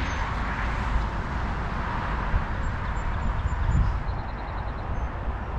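Steady outdoor rumble and hiss, with a few faint high chirps about three seconds in.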